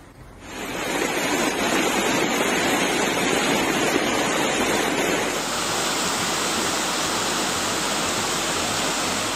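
Monsoon floodwater rushing in a fast, muddy torrent: a steady noise of churning water. About five seconds in it changes to a brighter, more even rush, where the flood pours over the edge of a wall.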